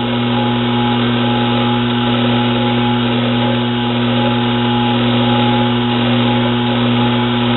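Metal lathe running steadily with a constant hum and a hiss of noise, its bit taking a light facing cut of about a thousandth off a nut held in the chuck.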